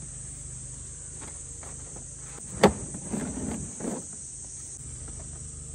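Plastic storage crates being handled on a truck's flatbed: one sharp knock about two and a half seconds in, then a second of scraping and bumping. A steady high insect drone runs underneath.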